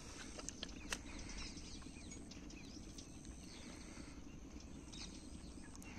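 Faint outdoor ambience with small birds chirping thinly in the background, and a few light clicks, the sharpest just under a second in.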